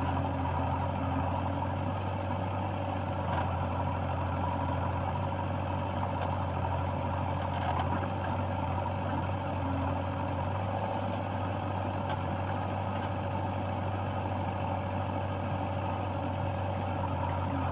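Diesel engine of heavy machinery running at a steady speed, a constant low drone that does not rise or fall, with a couple of faint knocks.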